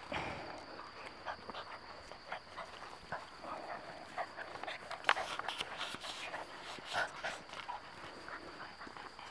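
Puppies scrambling and snuffling in grass right by the microphone: many short scuffs and rustles, with louder sounds about five and seven seconds in.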